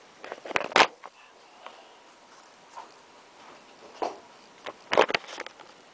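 Handling noise on a worktable: a cluster of quick clicks and knocks about half a second in, a few lighter single taps, then a second cluster of clicks and knocks around five seconds in.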